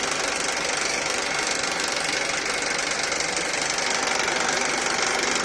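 Honda Accord K24 2.4-litre four-cylinder engine running steadily with a fast, continuous rattle.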